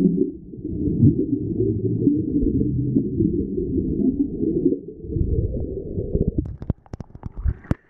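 Muffled underwater rumble and bubbling of a scuba diver's exhaled air, heard through the water. About six and a half seconds in the rumble fades into a run of sharp clicks and crackles as the diver rises to the surface in a cloud of bubbles.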